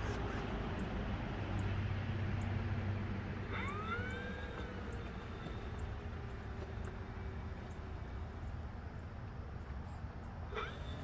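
Electric motor and propeller of an FMS T-28D radio-controlled plane in flight. A steady low drone runs throughout, and the motor whine swoops up and back down twice: about three and a half seconds in, and again near the end.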